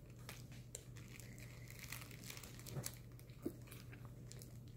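Faint crinkling of a plastic cellophane wrapper being handled, with a couple of soft knocks about three seconds in, over a steady low hum.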